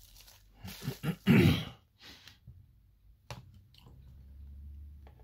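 Close handling noise: a few short rustling, crinkling scrapes, the loudest about a second and a half in, followed by a few light clicks.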